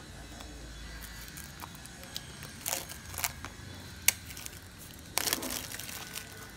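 Thin plastic seal wrap being torn and peeled off a small cardboard box, crinkling in a few short bursts, with a sharp click about four seconds in and the longest crinkle a little after five seconds.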